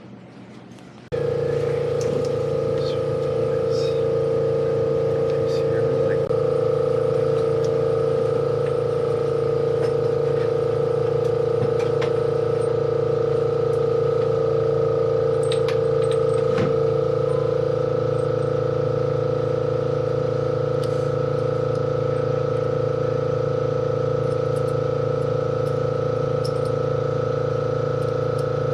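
A machine or engine running at a steady, unchanging speed: a constant hum that starts abruptly about a second in, with a few faint clicks over it.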